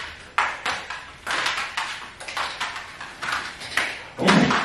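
Border collie leaping and snapping at soap bubbles: a quick run of claw scrabbles and paw landings on a hard floor, two to three a second. Near the end comes a louder, deeper sound, likely the short growl she gives as she comes down.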